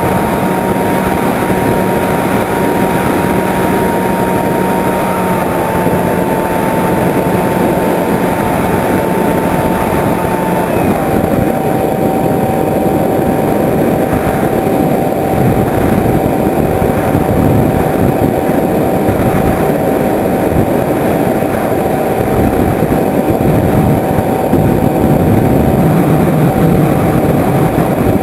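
Skyhunter 1.8 m RC plane's electric motor and propeller whining steadily in flight, with rushing wind noise on the onboard camera. The whine steps down in pitch about five seconds in and again about eleven seconds in as the motor slows.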